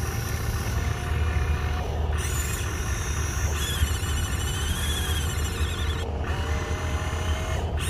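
Electric motors and gearboxes of a radio-controlled excavator whining as its boom and bucket move, the pitch stepping and wavering with each movement, over a steady low rumble.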